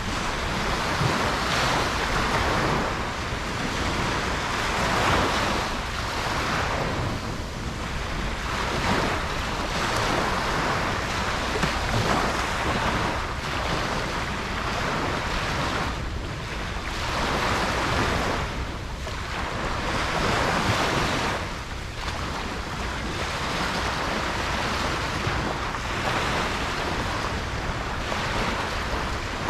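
Ocean waves breaking and washing up a beach, the surf swelling and falling back every few seconds, with some wind noise on the microphone.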